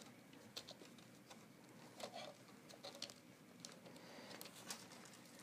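Near silence with faint, irregular small clicks and rustles of wires and plastic being handled in a 3D printer extruder's cable bundle.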